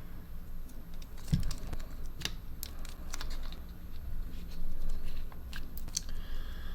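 Small clicks and taps of hands working a replacement iPhone battery loose from its plastic packaging, with one dull knock about a second and a half in.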